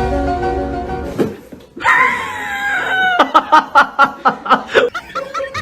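Brief music, then a loud cry falling in pitch, followed by a quick run of short rhythmic laughing calls, about six a second.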